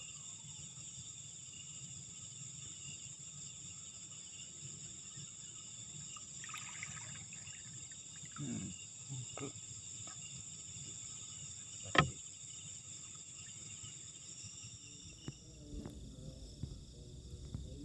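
Steady chorus of night insects such as crickets, several high, even tones. A single sharp click about twelve seconds in, and near the end the chorus thins under a low rumble.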